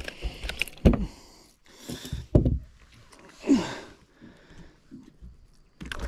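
Handling noise while a fish is unhooked with pliers on a boat deck: a few dull knocks, the loudest a little under a second in and another about two and a half seconds in, with hissy breaths between.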